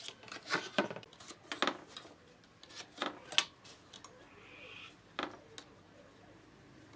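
A long steel ruler being laid down and shifted on pine boards, giving several light knocks and scrapes, with a pencil scratching a line along its edge about four and a half seconds in.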